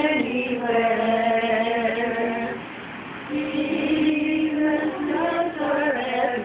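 A small group of family voices singing a song together, holding long notes, each note held for a second or two.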